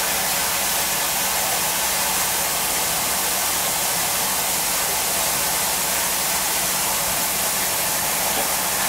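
Steam locomotive 3801 venting steam from the top of its boiler: a loud, steady hiss.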